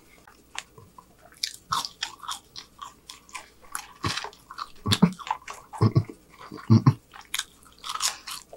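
A person chewing and biting a mouthful of burger and french fries close to the microphone: irregular wet mouth smacks and clicks, with a few louder bites in the middle.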